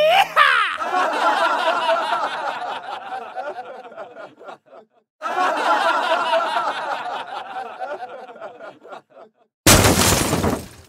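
Someone laughing hard and on and on, starting with a rising cry, breaking off for a moment about halfway, then laughing again, as a man rides a playground zip wire. Near the end comes a loud, rushing burst of noise about a second long.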